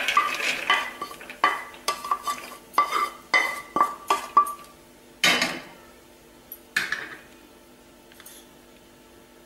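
A spatula scrapes and knocks against a frying pan as roasted chopped nuts are tipped out onto a plate. There are about ten quick ringing clinks and scrapes over the first four seconds, then two longer scrapes.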